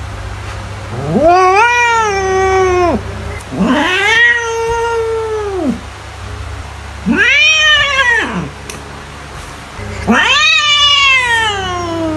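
Domestic cat meowing four times in long calls, each arching up and then down in pitch.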